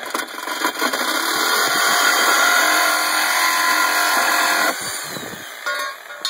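Reciprocating saw running at full speed as its blade cuts through the end of a Jeep Wrangler's bumper. The saw goes quieter about three-quarters of the way through as the cut nears its end.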